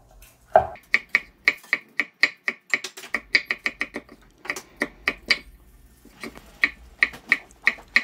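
A knife slicing a red bell pepper into thin strips on a wooden cutting board: quick, even taps of the blade on the board, about five a second, with a short break a little past the middle before the cuts resume.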